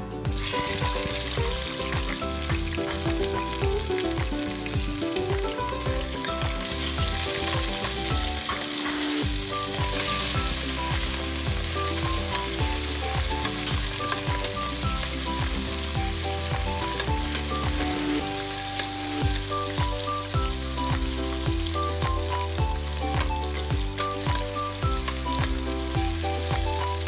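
Diced bell pepper, carrots and potatoes sizzling as they fry in oil in a stainless steel pot, stirred now and then with a metal spoon.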